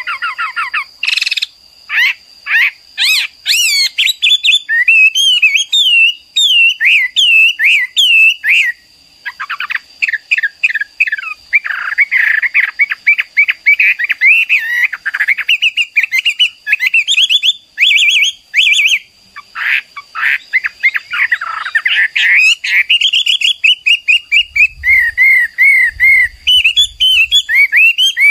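Chinese hwamei (Garrulax canorus, melodious laughingthrush) singing a continuous, rapid song of varied whistled phrases, trills and quickly repeated slurred notes. A faint steady high tone runs underneath.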